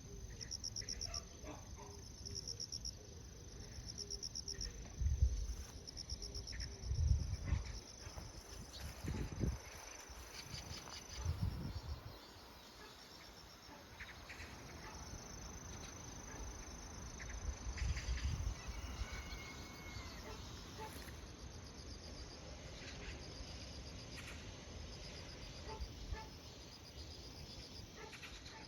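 Insects chirping and trilling: a steady high-pitched buzz with repeated pulsing chirps. Several low thumps and rumbles come in the first half and once more later.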